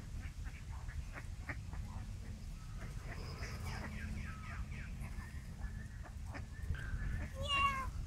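Mallard ducks calling softly over a steady low background rumble. A toddler gives a short high-pitched squeal near the end.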